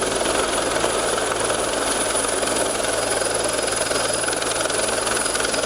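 Helicopter running close by, a steady loud rotor and engine noise that holds even throughout.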